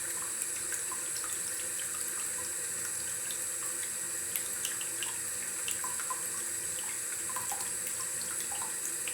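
Water running from a tap into a bathtub as it fills: a steady rush of water with small splashes and plinks scattered through it.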